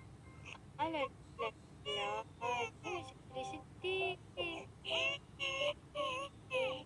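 A high-pitched child's voice babbling sing-song nonsense syllables ('alalala'), about two or three short syllables a second, sliding up and down in pitch.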